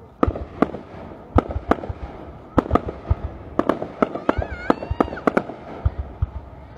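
Aerial fireworks shells bursting in the sky: a string of sharp bangs, about a dozen at irregular intervals, some in quick pairs.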